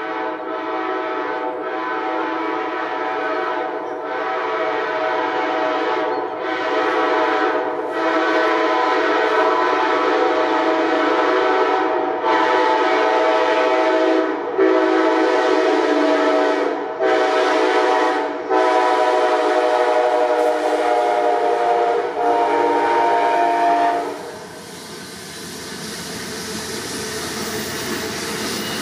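Nathan K5LA five-chime air horn on an Amtrak P42 locomotive sounding a long warning at trespassers on the track: one sustained loud chord lasting over twenty seconds, broken by several brief gaps. The horn stops about 24 seconds in, and the train's running noise rises as it passes.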